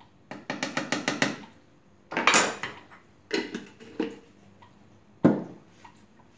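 Kitchen handling sounds: a pepper grinder turned in a quick run of about eight clicks over the blender jar, then a short rasping noise, a few soft knocks and one sharp knock about five seconds in.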